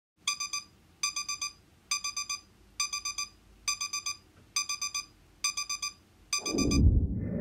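Digital kitchen timer alarm going off: repeated groups of four quick, high beeps, about one group a second, signalling that the countdown has reached zero. Near the end a louder, low, noisy sound cuts in over it.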